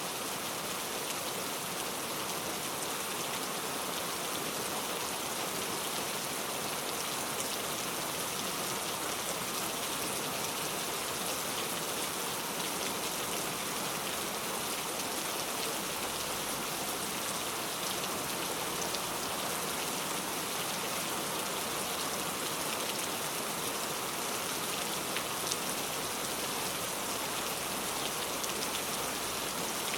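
Steady heavy rain falling in a forest, a dense, even hiss of drops pattering on leaves and ground.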